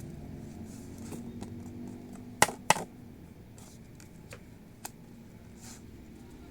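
Two sharp clicks in quick succession about two and a half seconds in, with a few fainter taps scattered around them, over a steady low hum.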